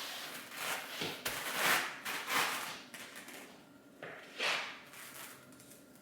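Ruggable washable rug cover being pulled from and pressed onto its hook-and-loop (Velcro-like) rug pad, making short rasping rips: a run of them in the first three seconds, then one more about four and a half seconds in.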